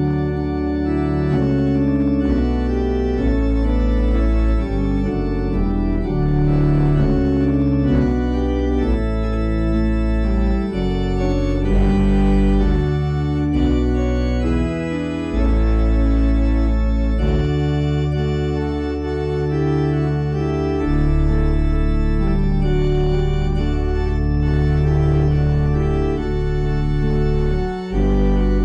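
Organ playing offertory music during the collection, in slow sustained chords over deep held bass notes, with a brief break near the end.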